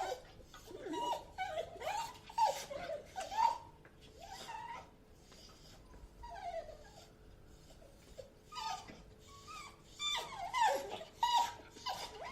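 A dog whining: short high-pitched whimpers that rise and fall in pitch, coming in clusters. There is a quieter, sparser stretch in the middle, and they pick up again near the end.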